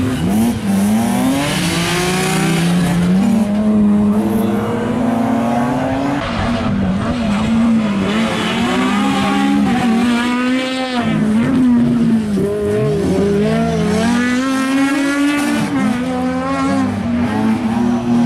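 BMW E36 3 Series rally cars driven hard through a tight turn on tarmac, one after the other, the second coming through about ten seconds in. Engine pitch climbs and drops again and again with throttle lifts and gear changes, and the tyres squeal as the cars slide.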